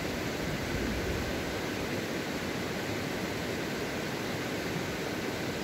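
Mountain stream rushing over rocks, a steady even water noise.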